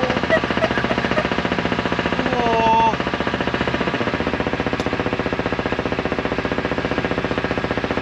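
Boat engine running with a fast, even chugging pulse. It drops a little in loudness about three seconds in.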